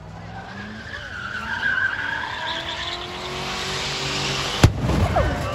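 Motor vehicle engine running and building up, its pitch rising slowly, with a higher whine loudest about two seconds in. A single sharp click comes near the end.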